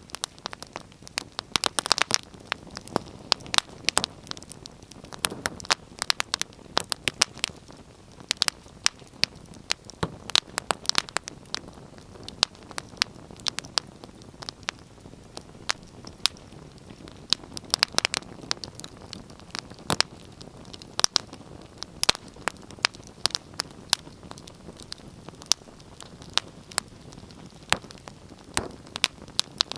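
Wood fire crackling: irregular sharp pops and snaps, several a second, over a soft steady hiss of burning.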